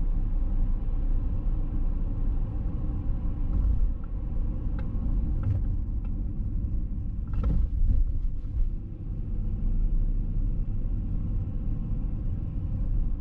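2005 Jaguar S-Type 3.0 V6 being driven: a steady low rumble of engine and road noise, with a few short knocks in the middle, the loudest about seven and a half seconds in.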